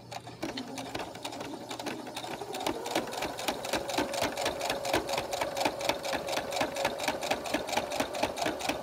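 Domestic electric sewing machine stitching a seam at a 2 mm stitch length through thick layers of fabric. It picks up speed over the first couple of seconds, then runs steadily with a rapid, even needle clatter.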